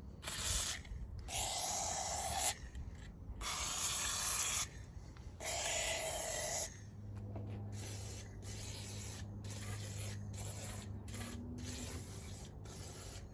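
Aerosol penetrating spray hissing out in four long bursts, then in quieter, shorter bursts over a low hum, as it is sprayed in to soak the stuck pistons of a frozen 440 big-block V8.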